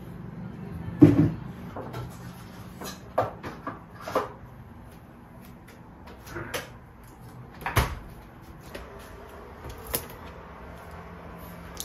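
Household objects being handled and set down: scattered knocks and clicks, the loudest about a second in and another near eight seconds, over a low steady hum.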